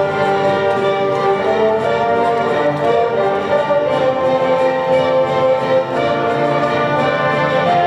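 A school orchestra playing, strings and brass together, moving through long held chords.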